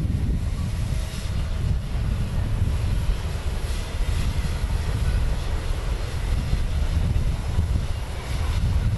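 Wind buffeting the microphone: a steady, uneven low rumble with no beat or chuffing.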